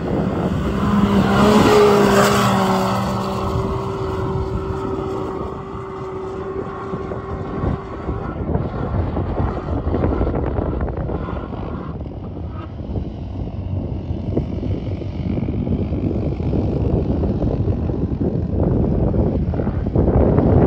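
Side-by-side UTV engine running hard as it drives past close by on the sand, loudest about two seconds in, then fading to a more distant, steady engine sound as it climbs a dune.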